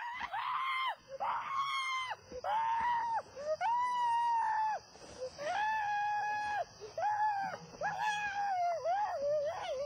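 A person screaming over and over in high, held screams, about nine in quick succession, each lasting half a second to a second.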